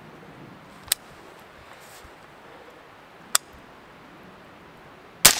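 Two brief sharp clicks, then a single shot from a suppressed AR-style carbine just before the end, its echo starting to trail off.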